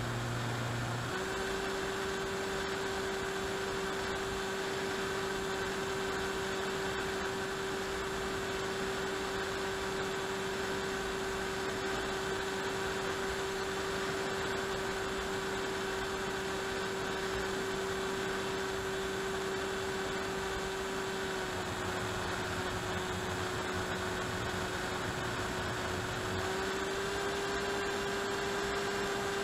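Electric motor and pusher propeller of an AXN Floater-Jet RC plane droning steadily in cruise, heard from on board with a rush of air. The pitch steps up slightly about a second in, sags a little past the middle and picks up again near the end as the throttle shifts.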